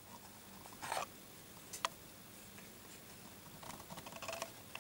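Syrian hamster rustling in paper bedding and gnawing at a cardboard toy: a scratchy rustle about a second in, a sharp click, then a quick run of small clicking bites near the end, all faint.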